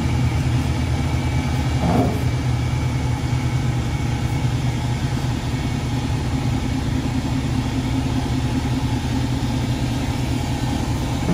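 Chevrolet Camaro engine idling steadily through its exhaust.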